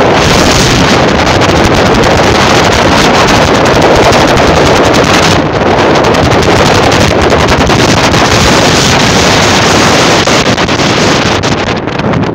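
Loud, steady wind rush buffeting the microphone of a camera carried on a moving vehicle along a road, easing a little near the end.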